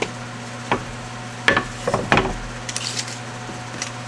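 A tapered oak board being handled and set down on a workbench: a few light wooden knocks and scrapes, the loudest cluster around the middle.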